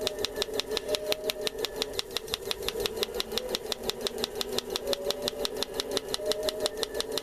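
Electric breaker hammer on a Kabolite 970 RC excavator pounding steadily, with rapid, evenly spaced blows about eight or nine a second, over a steady motor whine.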